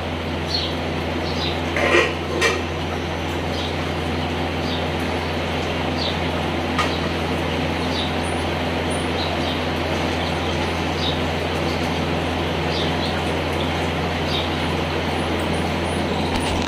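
A steady low mechanical hum with a constant hiss runs underneath. About two seconds in come two short metallic clinks, a steel dog bowl being handled.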